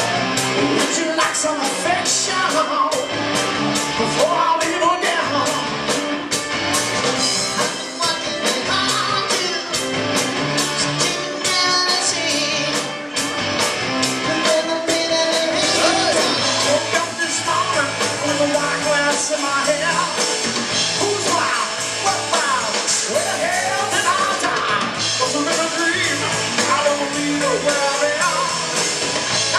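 Live rock band playing electric guitars, keyboard and drums to a steady beat.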